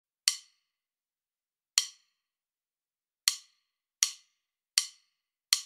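Click-track count-in: six short, sharp ticks, the first three a second and a half apart and the last four quicker, about three-quarters of a second apart, counting in the tempo before the music starts.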